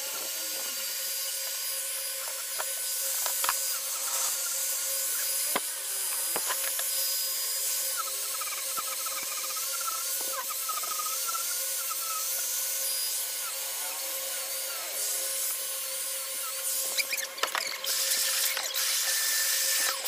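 Small electric angle grinder with a sanding disc running steadily as it sands a carved wood panel: a continuous high motor whine over the grinding hiss of disc on wood. Over the last few seconds the sound turns uneven, with sharp clicks and surges.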